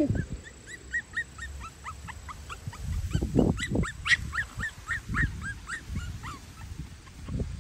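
Four-week-old Cavalier King Charles Spaniel puppies whimpering in a run of short, high squeaks, several a second, with a few low rustles about three to four seconds in.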